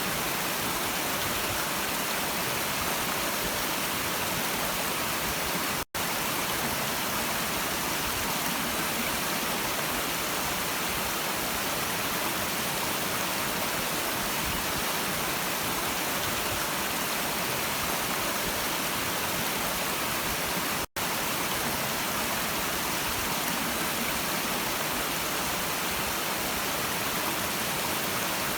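A stream's running water: a steady, even rushing hiss. It cuts out for a split second twice, about six seconds in and again about twenty-one seconds in.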